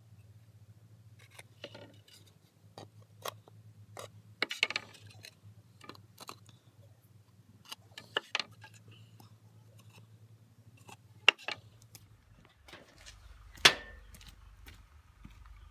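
Rough pallet-wood boards and a metal caliper being handled: irregular clicks, knocks and clinks, with a few sharper louder knocks.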